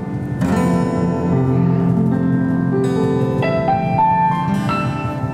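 Instrumental passage from a small acoustic band: a keyboard in a piano sound leads, with acoustic guitar and cajon underneath. A short rising run of higher notes comes about three and a half seconds in.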